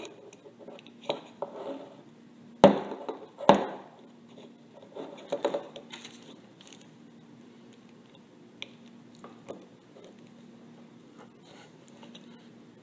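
Metal clicks and taps from a piston, wrist pin and socket being handled as the wrist pin is started into the piston's pin bore, with two sharper knocks about two and a half and three and a half seconds in. A faint steady hum runs underneath.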